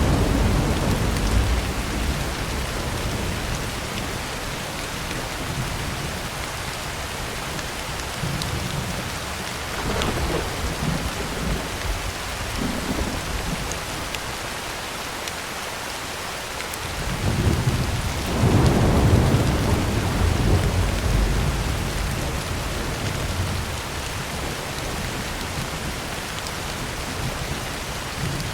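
Heavy rain falling steadily on a tin roof, with rolling thunder. A rumble fades over the first couple of seconds, a weaker one comes about ten seconds in, and the loudest swells up about two-thirds of the way through and dies away over several seconds.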